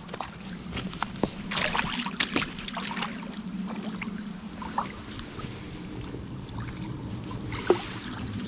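Water splashing and sloshing as a hooked grayling thrashes at the surface of a small stream pool and is drawn into a landing net. The splashes come in a busy cluster about two seconds in, then lighter sloshes, with a single sharp click near the end.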